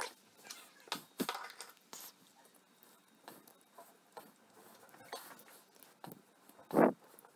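Light, scattered metallic clicks as the .310 Martini Cadet rifle's trigger guard and trigger mechanism are handled, with a brief louder sound near the end.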